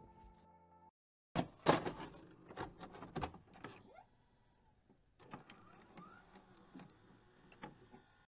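Electronic transition sound effects for a loading-screen graphic: a string of sharp clicks, whirs and glitch noises starting after a brief gap about a second in, with a short rising sweep in the second half.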